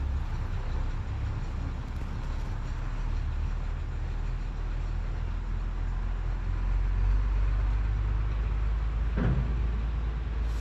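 Ford L8000 dump truck's diesel engine running as the empty truck drives off, a steady low rumble that swells slightly partway through.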